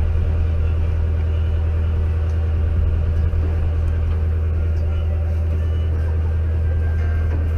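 A fishing boat's engine running steadily with a low, even drone.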